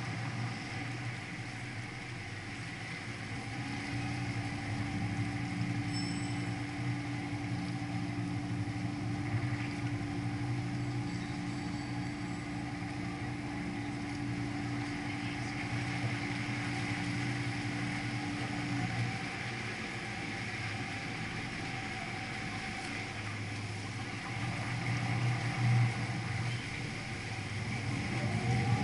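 Canal tour boat's engine running steadily underway, a low even drone over the wash of water and city background. A steady higher-pitched hum joins it for about fifteen seconds in the middle, and the sound grows louder near the end.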